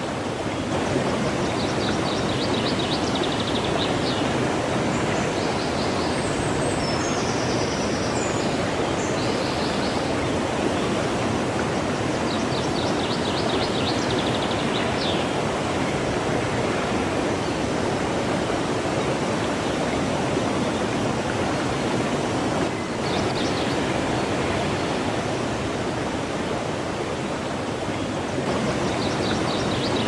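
Steady rushing of a flowing stream, with short runs of rapid high chirping every few seconds.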